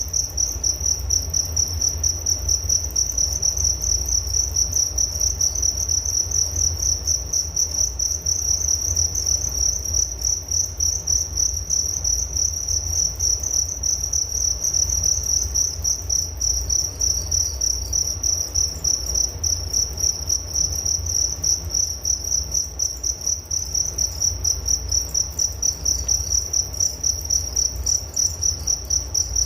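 Crickets chirping continuously: a high, rapidly pulsing trill that keeps an even rhythm, over a faint low rumble.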